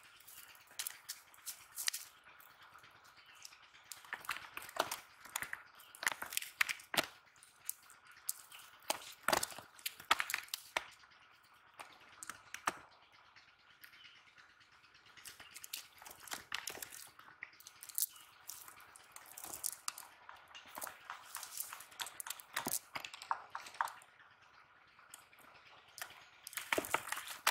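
Irregular rustling, crackling and soft taps of a nylon cast net and wet fish being handled, as fish are picked out of the mesh on grass. The sounds come in clusters with short quieter pauses.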